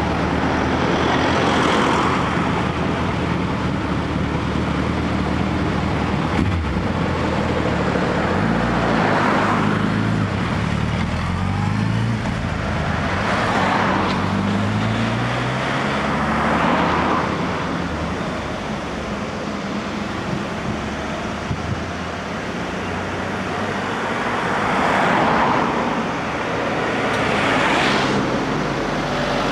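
Suzuki GSX1300R Hayabusa's inline-four with a Yoshimura exhaust pulling away and accelerating, its pitch rising twice as it runs up through the gears. Cars pass by several times along with it.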